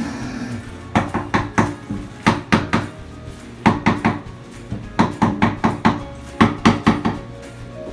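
Mallet tapping a large ceramic wall tile to bed it into the tile adhesive, in quick bursts of three to five taps about every second and a half.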